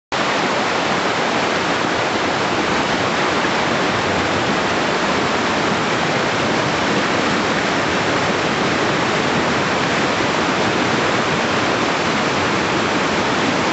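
River rapids rushing, a loud steady sound of whitewater pouring over rocks.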